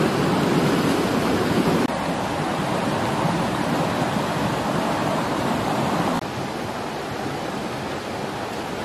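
Steady rushing of water, like a nearby stream or waterfall, with no distinct events. The level drops abruptly about two seconds in and again about six seconds in.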